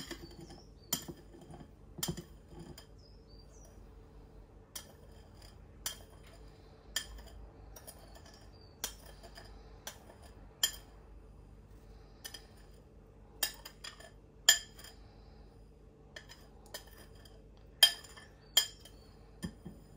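Metal spoon clinking and scraping against a glass mixing bowl as granulated sugar is spooned out into a glass Kilner jar. It makes irregular sharp clinks, one every second or so, the loudest about three-quarters of the way through.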